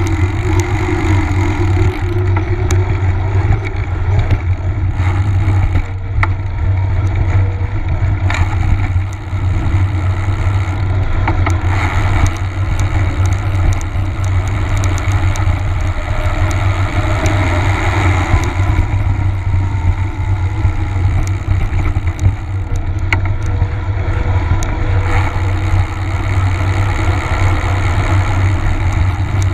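Wind buffeting a bike-mounted camera's microphone as the mountain bike rolls along, with the hum of knobby tyres on pavement and a few short rattles and knocks from bumps.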